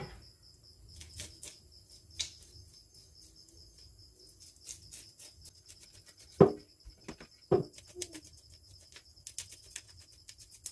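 Knife scraping along raw barracuda in a stainless steel bowl, a run of short faint scrapes and clicks as the fish are scaled. Two louder knocks with a ringing tail, the knife or fish striking the metal bowl, come about six and seven and a half seconds in.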